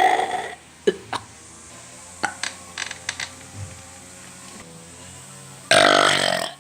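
A person burping twice: one burp trailing off in the first half second, and another lasting about a second near the end, with a few faint clicks in between.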